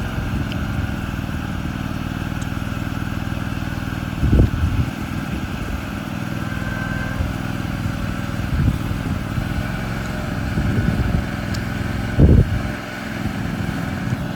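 Mini excavator's Rato air-cooled V-twin gasoline engine running steadily, with two brief louder surges about four and twelve seconds in.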